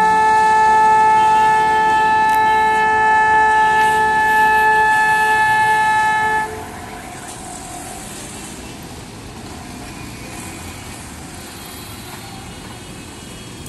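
A vehicle air horn held in one long, steady blast that cuts off suddenly about six and a half seconds in, followed by the steady noise of engines and traffic.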